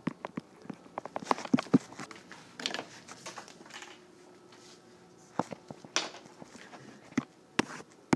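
Stylus tapping and scratching on a tablet screen as a word is handwritten: a quick run of sharp clicks in the first two seconds, then scattered clicks and a few short rustles.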